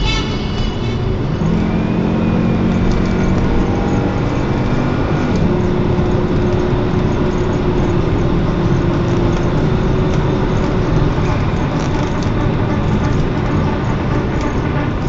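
Volvo V70R's turbocharged five-cylinder engine droning steadily at highway cruise, heard from inside the cabin under a constant roar of tyre and road noise.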